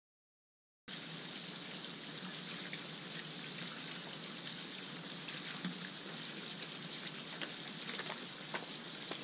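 Steady splashing of water spilling from a raised spa over its edge into a swimming pool, with a few faint clicks; it starts abruptly about a second in.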